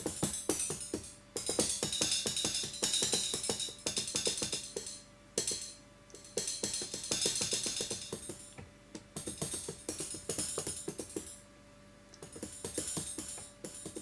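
A ride-cymbal drum sample triggered from a Native Instruments Maschine MK1's pads in quick runs of hits with short pauses, the one sample spread across the pads at different pitches in pad (keyboard) mode.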